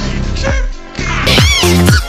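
Electronic dance music with a steady beat. About a second in it cuts to a heavier bass-driven section, opened by a swooping tone that rises and falls.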